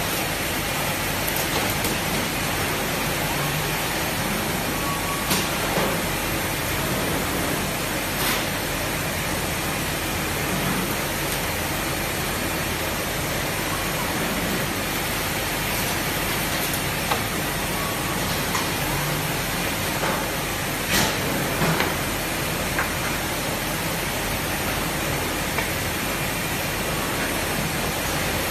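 Steady hiss and hum of circuit-board factory machinery and air handling, with a few scattered clicks and knocks.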